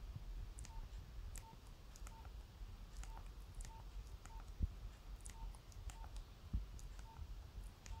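Nokia 3100 keypad tones: about ten short beeps, all at the same pitch, at an uneven pace, each with a faint click as a key is pressed to scroll through the phone's menus.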